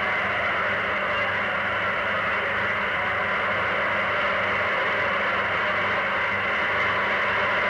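Sustained, even applause from a hall full of parliamentary deputies, on an old 1939 recording with a steady mains hum underneath.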